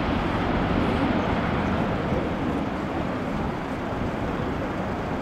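Jet engine noise from a Lufthansa Airbus A380's four Rolls-Royce Trent 900 turbofans, a deep steady rumble that slowly fades as the airliner flies away.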